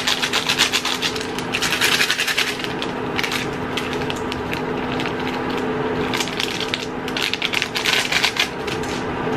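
Dense, rapid crackling and ticking from a pan of instant ramen noodles cooking in a little water, as seasoning powder is shaken from a paper sachet onto them, over a steady low hum.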